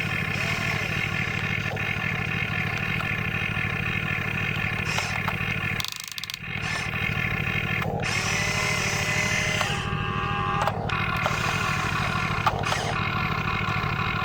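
Small electric motors of radio-controlled construction models whining steadily, a few tones sliding up and down in pitch as they work, with a brief drop about six seconds in.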